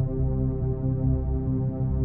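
Electronic background music: a low, pulsing synthesizer drone holding steady tones.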